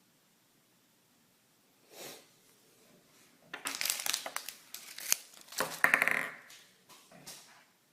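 Packaging being crinkled and torn open by hand as a toy is unwrapped: a run of loud rustling and crackling with sharp clicks starting about halfway in, after a single soft rustle.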